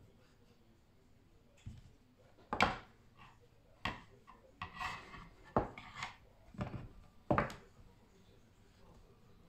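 Hand crimping pliers clacking shut as they crimp insulated butt connectors onto the copper cores of a rubber cable: about eight sharp metal clicks and clacks spread over some six seconds.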